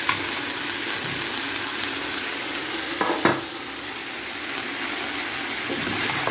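Chicken breast fillets sizzling steadily as they fry in a pan, with a light click at the start and a short knock about three seconds in, the loudest moment.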